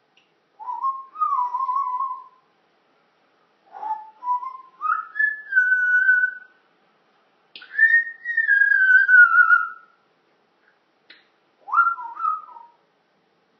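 African grey parrot whistling: four separate whistled phrases with short pauses between them, each gliding up and down in pitch. Two faint clicks fall between the phrases.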